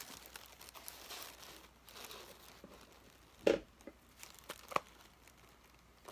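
Paper wrapping rustling and crinkling as it is handled, with a couple of sharper taps in the second half.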